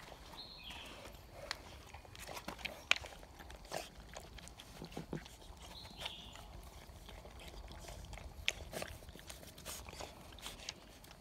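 Mudhol Hound puppies eating dry kibble from a steel bowl: irregular crunching and clicking of kibble and teeth against the metal, with snuffling.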